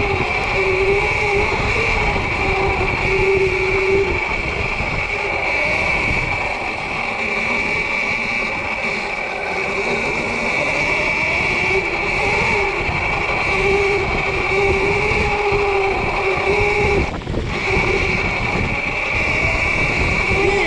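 Sur-Ron electric dirt bike's motor running under way: a steady high whine over a lower whine that rises and falls, with rumble underneath. It dips briefly about three quarters of the way through.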